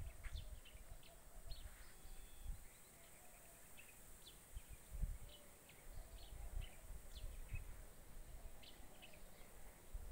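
Quiet outdoor ambience: scattered short bird chirps, high in pitch, over uneven low rumbling on the microphone.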